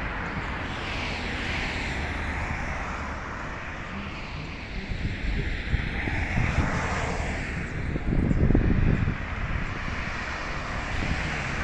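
Road traffic passing: tyre and engine noise of cars swelling and fading, with wind buffeting the microphone about eight seconds in.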